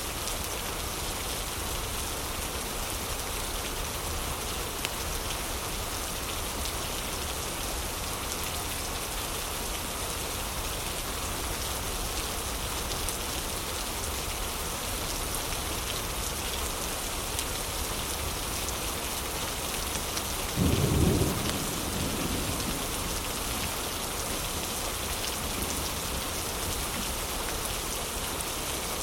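Heavy rain falling steadily as an even hiss, with one short, deep rumble of thunder about two-thirds of the way through.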